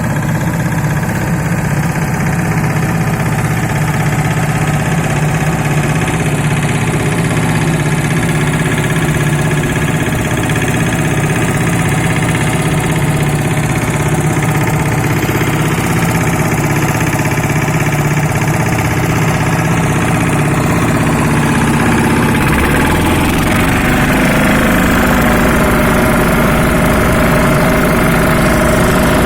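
Baby road roller's engine running steadily; about 22 seconds in, its note shifts to a deeper, rougher rumble.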